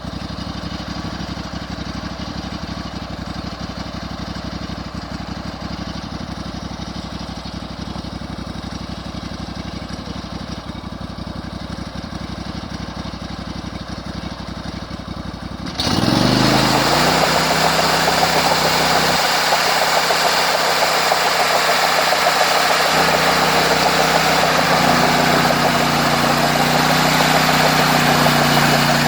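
Engine of a homemade sawmill running steadily at idle, then throttled up abruptly about halfway through, its pitch stepping up, and running loud at speed from then on.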